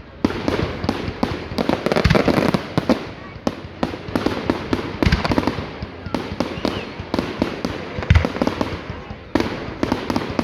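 Fireworks going off in a dense, continuous run of sharp bangs and crackles, many each second with no let-up.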